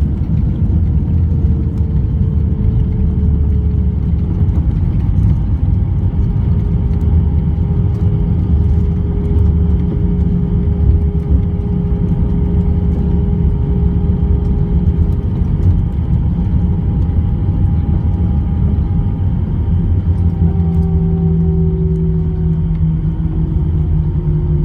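Airbus A321 jet engines running over a heavy low rumble, with steady whine tones that slowly drop in pitch.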